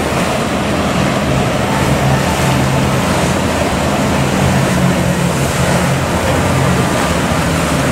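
A small fishing boat's engine running steadily as it motors past through choppy water, over the rush of its bow wave and breaking waves.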